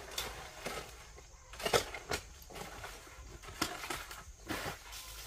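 Scattered sharp knocks and clacks of rocks being handled and set against one another, at an uneven pace, the loudest a little under two seconds in.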